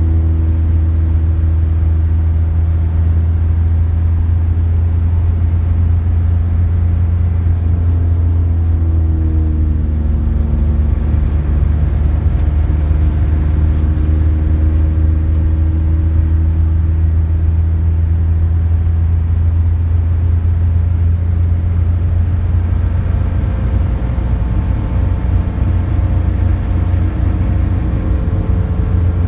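Car driving at highway speed, heard from inside the cabin: a steady low rumble of engine and road noise. The engine note shifts up and down a little about ten seconds in and again near the end.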